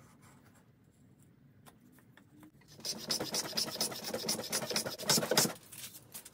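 A small hand plane shaving the edge of a block of timber clamped in a vise, cutting a bevel down to a marked line: after a quiet start, a quick run of rasping strokes from about three seconds in, lasting some two and a half seconds.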